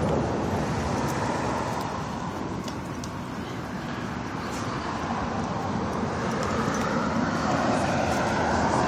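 Road traffic noise: a steady wash of passing vehicles, easing off a little midway and growing louder again near the end.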